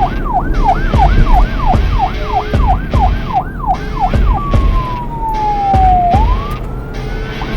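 Police car siren yelping in quick rising-and-falling sweeps, about three a second. About halfway through it switches to a slow wail that falls for nearly two seconds and then climbs again, over a low rumble.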